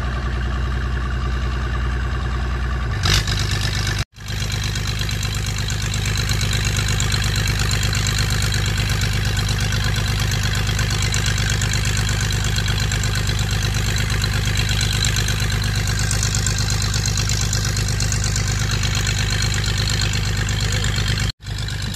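Steady drone of an engine or motor running at a constant speed, broken by two brief sudden dropouts, one about four seconds in and one near the end.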